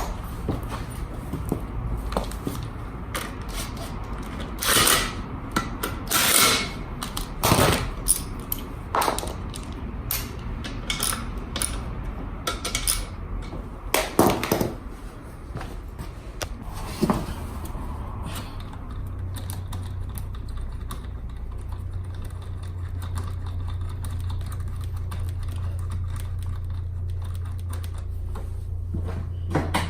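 Irregular metallic clanks and knocks of tools and scooter parts being handled. The knocks thin out after about 18 seconds, and a steady low hum rises from there on.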